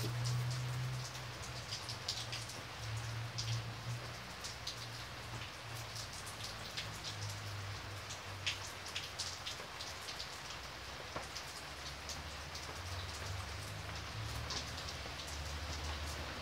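Steady rain falling on wet paving, with many separate drops ticking against surfaces, over a low rumble.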